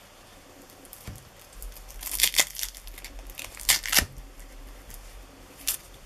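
Hook-and-loop (Velcro) fastener on an elastic wristband being pulled apart in a few short rasping rips, the loudest about two and four seconds in.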